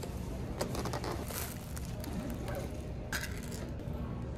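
Plastic food containers being handled: a few light clicks and rustles from a salad tub and a snap-shut utensil case, the sharpest click about three seconds in, over a steady low background hum.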